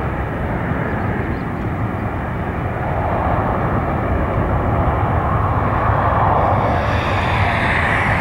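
Cessna Citation 560XL business jet's twin Pratt & Whitney Canada PW545 turbofans at climb power, heard from behind as the jet climbs away: a steady jet roar that grows louder and brighter from about three seconds in.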